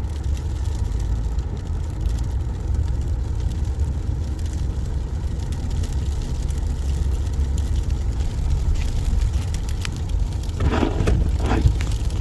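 Steady low rumble of a car driving slowly on a snow-covered road, heard from inside the cabin. Near the end there are two short louder sounds.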